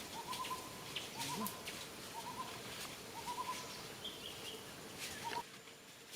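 A bird calling over and over, short runs of three or four quick notes about once a second, stopping about five seconds in; a few faint clicks alongside.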